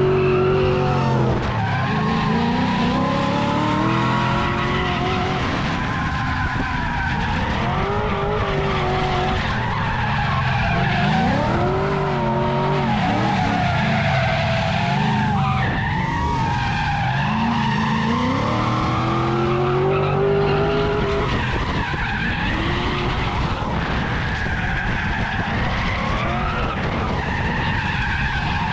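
Drift car's engine revving up and down repeatedly over the continuous hiss of tyres skidding as it slides through a turn.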